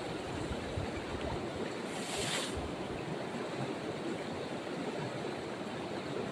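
Water running in a small canal, a steady rushing, with a brief sharp hiss about two seconds in.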